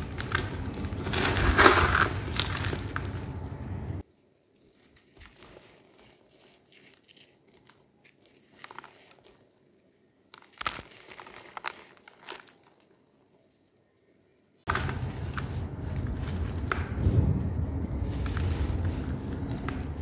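Dry sand-cement chunks crushed and crumbled between fingers into a basin, a dense crunching and crackling with powder pouring down. About four seconds in it drops to a much quieter stretch of scattered crackles and small clicks. It comes back at full loudness near the end.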